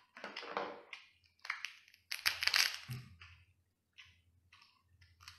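Cooked crab being broken apart by hand: a few bursts of cracking, crunching shell, the loudest about two seconds in.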